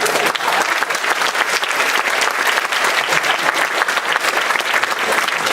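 Theatre audience applauding, many hands clapping steadily and loudly.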